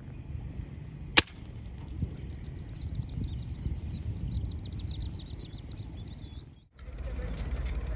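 A single air gun shot, a sharp crack about a second in, that misses; then birds chirping in quick runs of notes for several seconds. The sound drops out briefly near the end and comes back as a steady low rumble.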